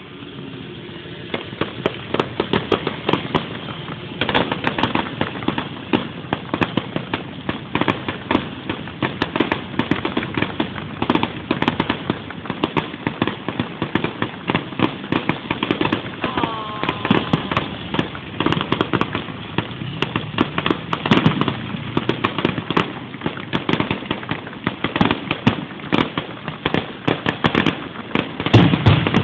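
Fireworks crackling and popping in a rapid, dense series, with a louder low boom near the end.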